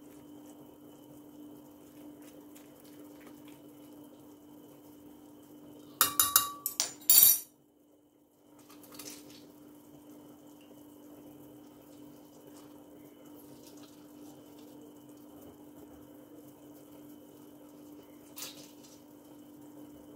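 A steel spoon clinking against a glass jug: a quick cluster of sharp, ringing clinks about six seconds in, then one softer clink near the end, over a steady low hum.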